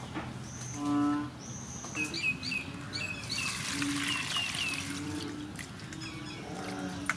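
Water splashing in a steel bowl as a handful of fresh vegetables and herbs is dropped in and swished around by hand, strongest in the middle. Small birds chirp and whistle repeatedly throughout, and a short animal call sounds about a second in, the loudest moment.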